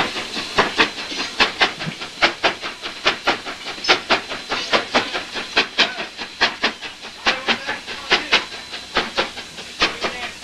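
Steam locomotive pulling passenger coaches, its exhaust chuffing in a steady, even beat of about three chuffs a second.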